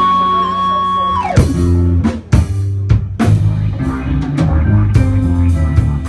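Live instrumental band: a held high lead note falls away in a downward glide about a second in, then drums, bass guitar and electric guitar carry on with a rhythmic groove.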